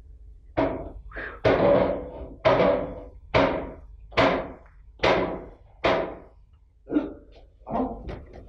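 A series of loud knocks, about one a second, each ringing out briefly, followed by a few weaker, uneven knocks near the end.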